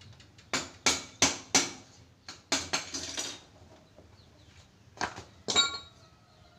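Metal tools and engine parts knocking and clanking on a concrete floor: four quick sharp knocks, a rattling cluster, then two more near the end, the last ringing like metal.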